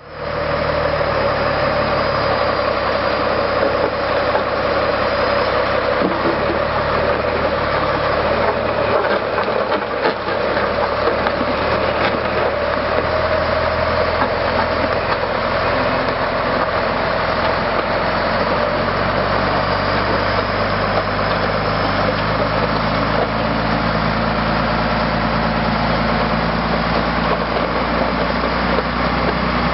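Scania diesel engine of a Mattsson 261S motor grader running steadily at low engine speed, its pitch shifting slightly a couple of times.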